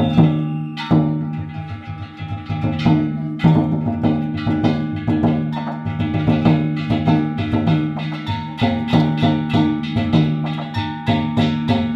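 Music: plucked string instrument playing quick repeated notes over a steady low pitch, with light percussion.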